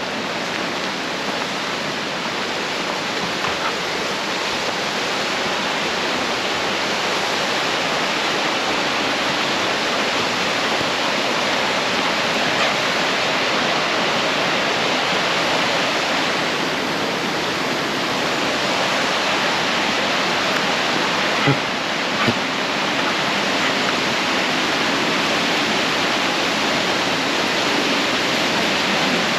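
A mountain river rushing and splashing over rocks in a steady, loud rush of water, growing a little louder over the first few seconds.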